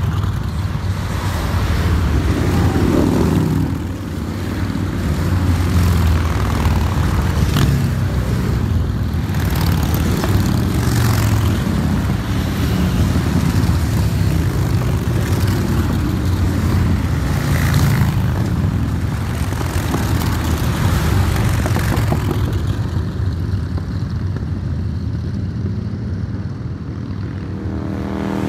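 A long line of motorcycles riding past one after another, their engines merging into a loud, steady drone, with one bike's pitch clearly dropping as it goes by about three seconds in. After about twenty-two seconds the sound thins out as the last few riders pass.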